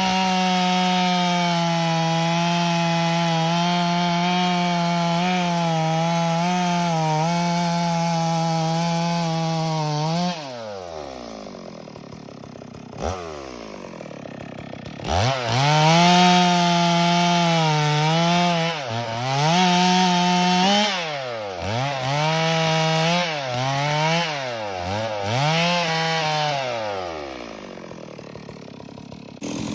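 Stihl MS 382 two-stroke chainsaw running at full throttle through wood for about ten seconds, then dropping to idle. About five seconds later it is revved up again in a series of short bursts, rising and falling, and it falls back to idle near the end.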